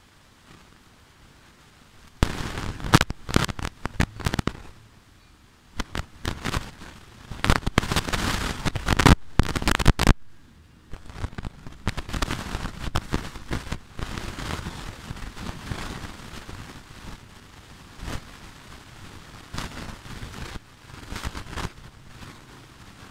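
A string of firecrackers going off: rapid sharp pops in dense clusters for about eight seconds, with a short lull partway, then thinner, quieter crackling that trails off.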